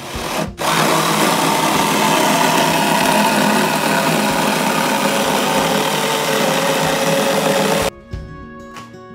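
Cordless power tool running under load as it works into a plywood board: a loud, continuous noise that starts about half a second in and cuts off abruptly near the end. Background acoustic guitar music plays on either side of it.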